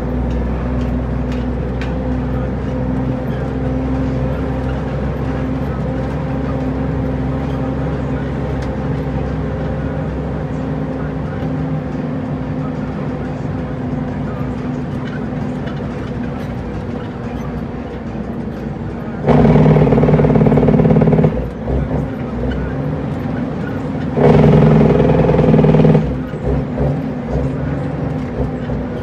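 International truck's Cummins N14 diesel engine running, heard from inside the cab while driving in traffic. Twice near the end, a loud, steady blast of about two seconds starts and stops abruptly over the engine.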